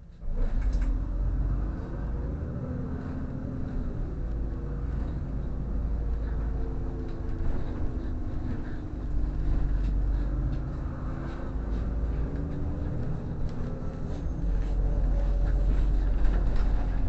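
Inside a moving city bus: the engine and drivetrain run with a heavy low rumble, their pitch slowly rising and falling as the bus speeds up and slows, with scattered rattles and clicks from the body and fittings.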